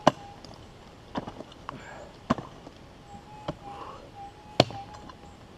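A pick striking into the ground, five hard blows about a second apart, digging out a deep metal-detector target.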